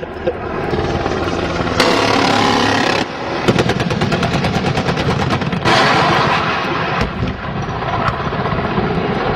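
AH-1 Cobra's 20 mm turret cannon firing bursts, heard over the helicopter's engine and rotor noise. A burst about two seconds in, a fast rattle of rapid shots for about two seconds from the middle, and another burst near six seconds.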